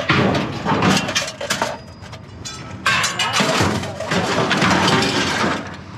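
Scrap metal clattering and scraping as it is unloaded by hand from a vehicle's cargo area, in two loud stretches with a brief lull between them and a short metallic ring about three seconds in.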